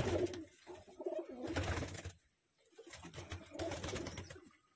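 Domestic pigeons cooing in their loft, three low coos of about a second each.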